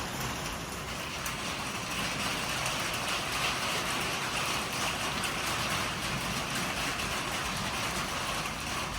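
Steady rain falling from a severe thunderstorm, an even hiss with no let-up.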